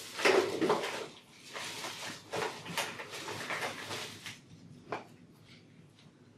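Clear plastic bags crinkling and small packed parts knocking as wrapped accessories are lifted out of a hard plastic bin. The rustling thins to a few light clicks after about four seconds.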